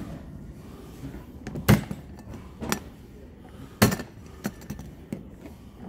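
A handful of sharp plastic-and-metal clicks and knocks from a Hart 26-inch plastic toolbox being handled, its metal latches flipped open, the loudest click about four seconds in.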